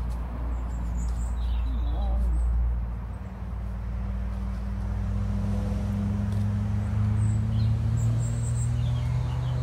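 A motor engine running steadily with a low hum, its note shifting higher about three seconds in. A few faint bird chirps over it near the end.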